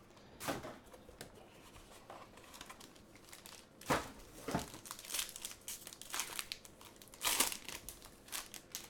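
A trading-card pack wrapper being torn open and crinkled, in irregular rustling bursts with louder crackles about four seconds in and again about seven seconds in.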